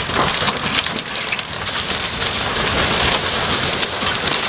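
Heavy truck sliding over a snowy road edge and tumbling down a steep slope: a continuous rushing crash of snow and debris, with sharp cracks and snaps.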